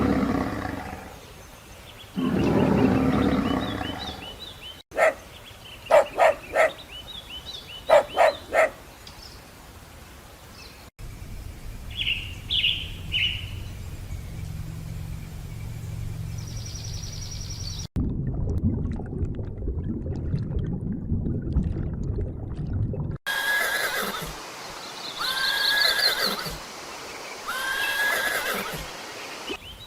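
A run of different animal calls, one short clip after another, cut abruptly every five or six seconds: loud calls at first, then quick repeated short calls, a few chirps over a low hum, a low rumble, and finally rising-and-falling calls.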